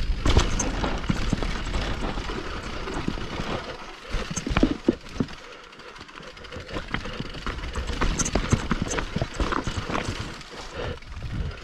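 Mountain bike rattling and clattering down a rough, rocky trail: irregular knocks and bangs over a steady rush of wind and tyre noise, quieter for a couple of seconds in the middle.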